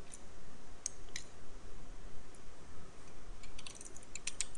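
Computer keyboard keystrokes clicking: a few scattered key presses, then a quick run of typing near the end, as a Bangla label is typed in.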